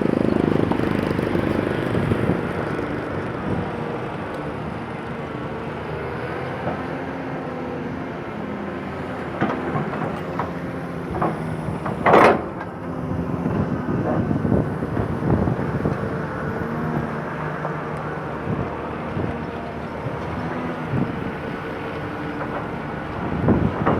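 Excavator's diesel engine running steadily with scattered knocks and clanks, and one loud, sharp noise about halfway through.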